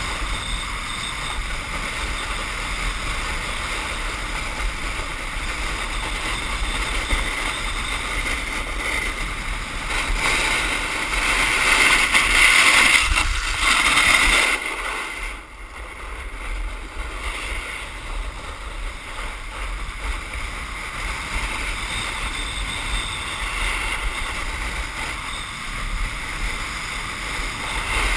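A steady rushing noise of wind on the microphone and a snowkite board running over ice. It swells louder about halfway through, then drops off suddenly for a moment.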